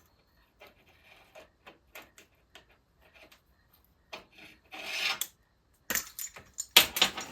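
Pliers working on a metal throttle-cable end fitting, trying to crimp it: faint small clicks, a short scraping rasp about five seconds in, then louder sharp metal clicks and clacks near the end.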